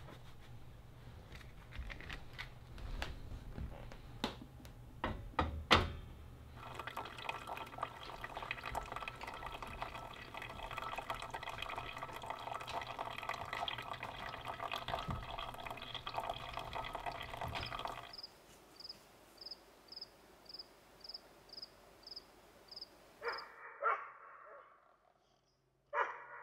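Hot water poured steadily into a paper filter in a pour-over coffee dripper set on a mug, a continuous pour of about eleven seconds. It is preceded by a few knocks and clinks of handling, and followed by faint, regular ticking, two or three a second.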